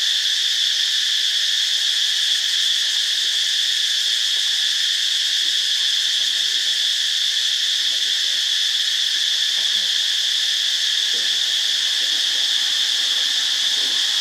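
A loud, steady chorus of insects: one continuous high-pitched drone that holds without a break.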